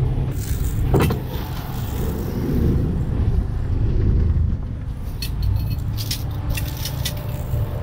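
Strong wind buffeting the microphone over the low rumble of a truck engine. A sharp clack comes about a second in, and a few light clicks and rattles follow near the end.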